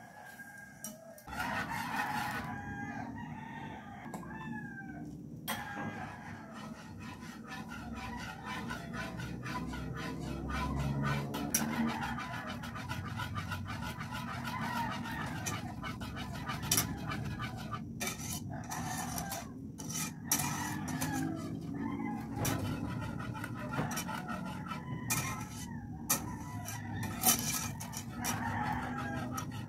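Wire balloon whisk beating pudding mixture in a nonstick pot: a fast, steady run of scraping clicks as the wires strike and rub the pot. Gliding pitched calls are heard in the background now and then.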